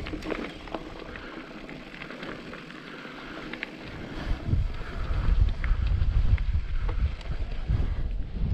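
Mountain bike descending a rough trail: tyres and frame rattling with small clicks over stones. About four seconds in, wind buffeting the action camera's microphone sets in and grows loud as speed builds.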